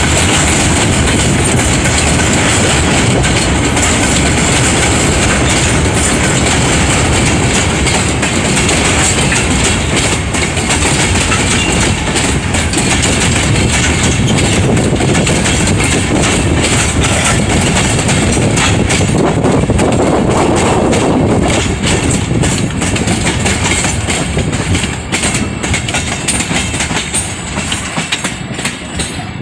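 A long train of empty freight wagons rolling past at speed: loud, steady wheel-on-rail rumble with clickety-clack over the rail joints, dying down over the last several seconds as the end of the train goes by.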